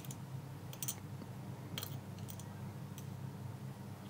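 A few light, sharp clicks of tiny lock pins and springs being handled and set down, over a steady low hum.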